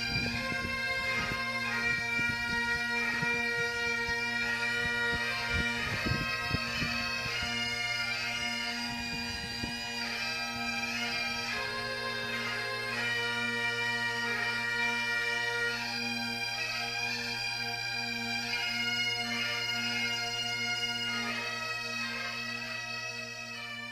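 Highland bagpipe music: a tune played over a steady, unbroken drone.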